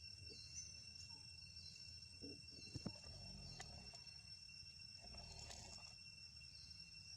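Near silence: a faint, steady, high-pitched drone with a couple of soft clicks about three seconds in.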